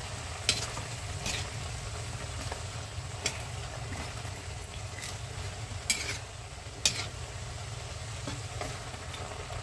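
Vegetables sizzling in a wok while a metal ladle stirs and turns them, with several sharp clinks of the ladle against the pan, the loudest two about a second apart near the middle.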